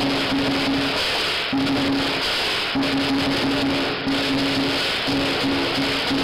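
Lion dance percussion band playing steadily: drum, cymbals and gong in a dense, loud din.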